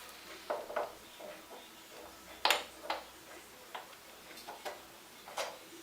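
Small metallic clicks and taps, about eight in all, the loudest about two and a half seconds in, as a brake pad is fitted into a Yamaha YZF-R1 motorcycle's front brake caliper.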